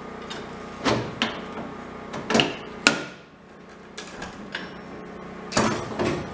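Hard parts being handled and set down: a series of sharp knocks and clicks at uneven intervals over a steady low hum.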